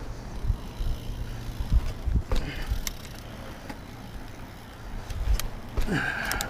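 Mountain bike rolling down a dirt trail: low rumble of tyres and wind on the helmet-mounted mic, with a few sharp clicks and rattles from the bike.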